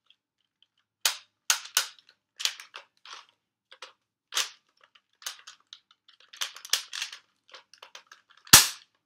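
Sharp plastic clicks and clacks of a Nerf blaster being handled, a dozen or so scattered irregularly. Near the end comes one louder thump with a deep thud.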